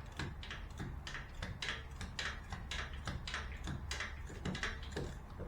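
Ratchet wrench clicking in short strokes on the transmission bell housing bolts, about two or three sharp clicks a second, as the bolts are checked for tightness. A low steady hum runs underneath.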